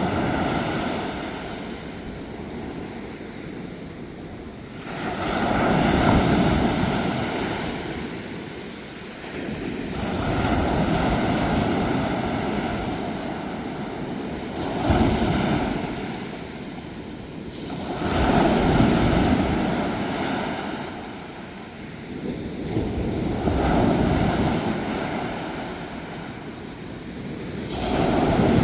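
Sea waves breaking and washing ashore. The sound surges up and drains away about every four to five seconds.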